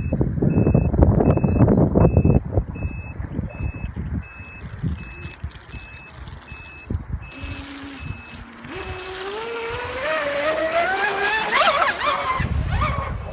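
Electric motor of a 6S RC catamaran winding up in a rising whine as it accelerates, from about nine seconds in until it falls away near the end. An electronic beep repeats about twice a second throughout, with wind on the microphone in the first couple of seconds.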